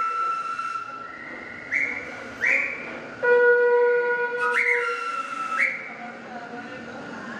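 Metro train pulling into the station with high whistling tones. Several held notes come and go, and there are four short rising whistles, around two and five seconds in.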